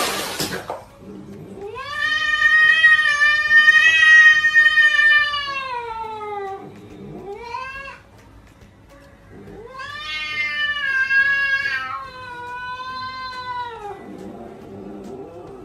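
A cat meowing in several long, drawn-out calls that rise and fall in pitch. The longest lasts about five seconds, and a short one and two more long ones follow. A brief noisy burst comes at the very start.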